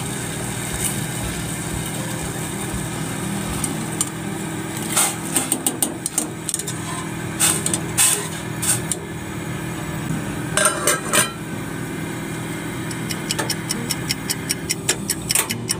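A metal ladle stirring sago pearls in a steel pot of boiling water, clinking and knocking against the pot in short runs of sharp knocks around the middle and again near the end, over a steady low rumble.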